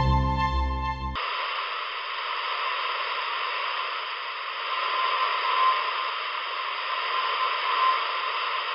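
Ambient music with long held tones cuts off sharply about a second in and gives way to steady radio static, an even hiss with no tune in it.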